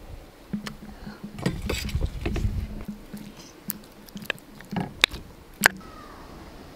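A steel knife clicking and tapping against an earthenware bowl while grilled meat is cut up: about six separate sharp ticks, with a low rumble of handling between about one and three seconds in.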